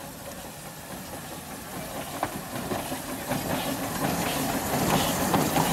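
Small narrow-gauge steam locomotive hauling open passenger cars, growing steadily louder as it draws near and passes, with scattered sharp clicks and knocks from about two seconds in.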